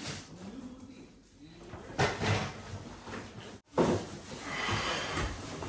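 Kitchen handling noises: a couple of knocks of cupboards or drawers opening and shutting, with rustling, as groceries are put away.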